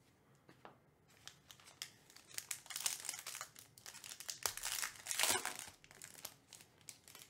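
Foil wrapper of a trading-card pack being torn open and crinkled by hand: a run of sharp crackles, loudest about three seconds and again about five seconds in.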